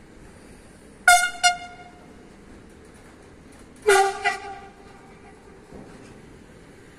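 Long freight train of car-carrier wagons rolling past, with a steady rumble. About a second in come two short, loud, sharp pitched tones. About four seconds in come two more, lower, with the first ringing on for a couple of seconds.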